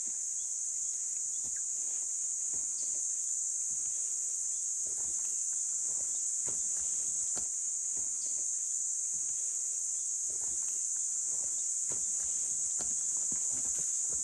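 A steady, high-pitched drone of insects, unbroken throughout, with soft footsteps on a dirt path scattered across it.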